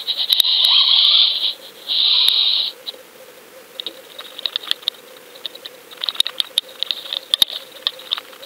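Underwater camera housing hauled up through the water: two bursts of rushing noise in the first three seconds, then a string of irregular ticks and clicks.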